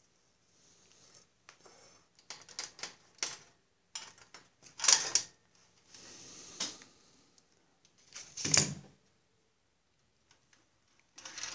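Vinyl electrical tape crackling as it is pulled off the roll and wrapped around a wire, amid irregular clicks and handling noise, with louder crackly bursts about halfway through and again about three-quarters through.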